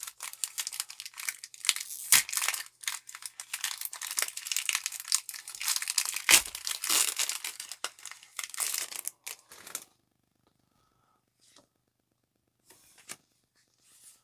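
Foil wrapper of a Pokémon trading card booster pack crinkling and tearing open by hand, with two louder rips along the way. The crinkling stops about ten seconds in, and a few faint taps of the cards being handled follow.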